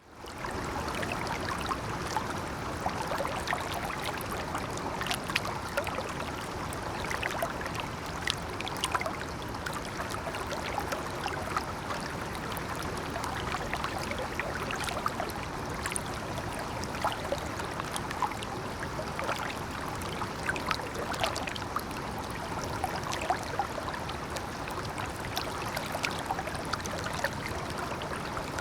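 Water flowing and splashing over stones near a waterfall: a steady rushing babble with many small splashes and trickles.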